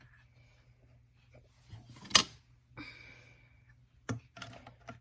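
Hand tools and parts knocking and scraping against a chainsaw during disassembly: one sharp click about two seconds in, a short scrape just after it, and a few lighter clicks near the end.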